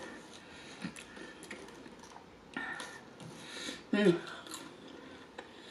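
Faint rustling and small clicks of fast-food packaging being handled, with a brief murmured voice just after four seconds in.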